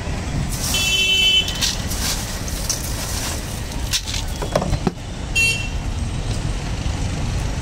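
Ice scooped by hand from an ice box and dropped into a plastic blender jar, with a few sharp clinks around the middle, over a steady rumble of road traffic. A short high-pitched tone sounds about a second in and again past halfway.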